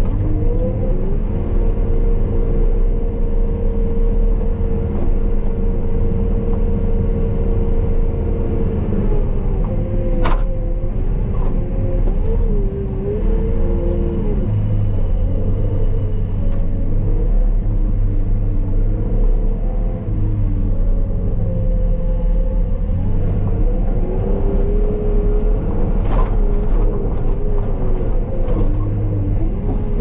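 Wheeled TeleSkid skid steer's diesel engine running inside the enclosed cab, its pitch rising and falling as the machine drives and pushes snow. There is a sharp click about ten seconds in and a few lighter ticks near the end.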